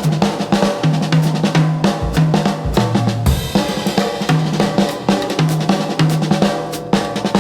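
Lounge music with a full drum kit playing a steady groove of kick, snare and hi-hat over a bass line.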